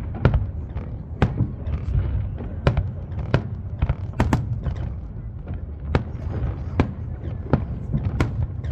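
Fireworks display: a string of sharp aerial shell bursts, irregularly spaced at about one or two a second, over a continuous low rumble of distant booms and their echoes.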